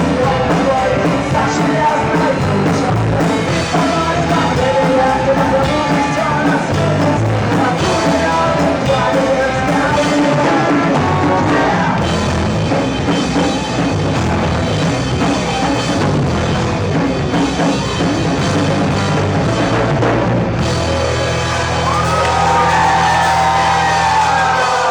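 Rock band playing live with a singer, drums and guitars. Near the end the band holds a long chord under high gliding, bending notes.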